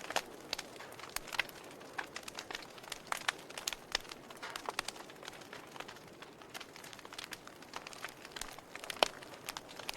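Wood logs burning in a fireplace, crackling with irregular sharp pops and snaps over a soft hiss; one louder pop about nine seconds in.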